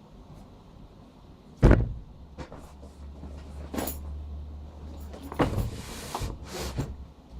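A sharp knock, then scattered bumps and rustles of things being handled, with a low hum under them for a few seconds after the knock.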